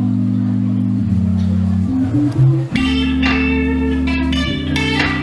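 Live band music: guitars with long held bass notes that change every second or so, and guitar chords coming in above them about three seconds in.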